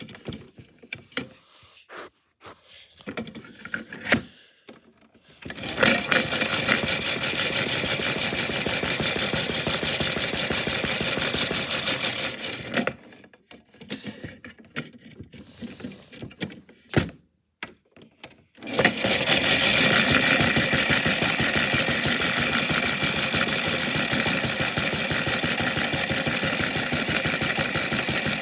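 Washing machine running with a big rock inside, a loud steady rattle and clatter of the rock against the drum. It starts about five seconds in, stops for a few seconds with scattered knocks, and starts again just before the last ten seconds.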